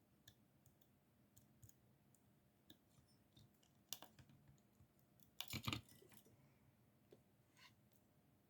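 Faint, scattered clicks and taps of small plastic kit parts and tools being handled, with a brief louder clatter about five and a half seconds in.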